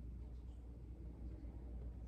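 Tabby cat purring steadily while her head is stroked by hand, a low, even flutter.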